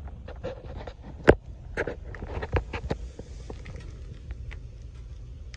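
Footsteps and handling knocks while moving and crouching to look under the truck: a run of irregular clicks, the loudest a single sharp click about a second in, dying away after about three seconds. Under them runs a steady low rumble.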